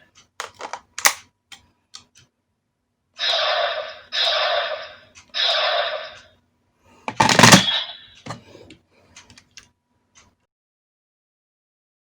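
DX Suiseiken Nagare toy sword being worked: a few sharp plastic clicks from its mechanism, then three short electronic sound bursts from its speaker, one louder sound effect about seven seconds in, and a few more clicks.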